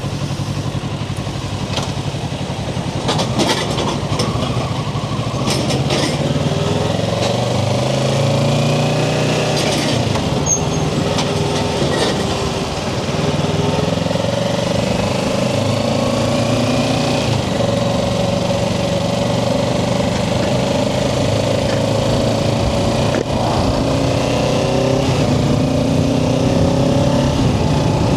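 Kawasaki Ninja 650's parallel-twin engine under way on the road, its pitch climbing several times as it accelerates through the gears.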